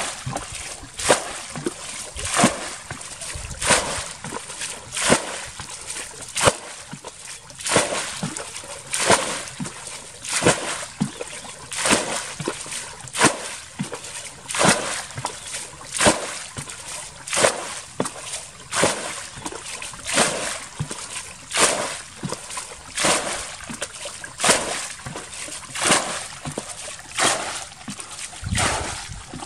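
Water being bailed out of a shallow ditch pool with a plastic bucket: each bucketful is scooped and thrown onto the water of the channel, making a sharp splash about every one and a half seconds in a steady rhythm, with sloshing and trickling in between.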